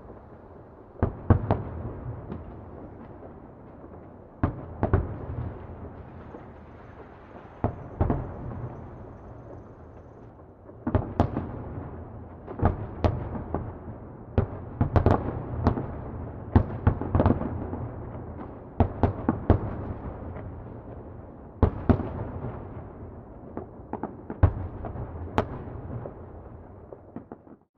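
Distant fireworks exploding: irregular sharp bangs, some in quick clusters, each trailing a rolling echo over a continuous low rumble. They come thickest about halfway through.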